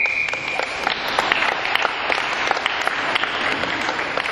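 Spectators clapping steadily after a referee's long whistle blast, which cuts off about half a second in. The whistle marks the end of the bout.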